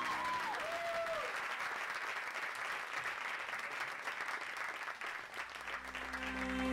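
Audience applauding, the clapping slowly dying down. A low, held music tone comes in near the end.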